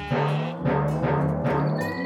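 Background music with sustained notes and a few strong drum hits.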